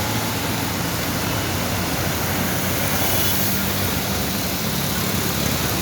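Road traffic: a vehicle engine running close by, its low hum fading in the last couple of seconds, over a steady, even hiss.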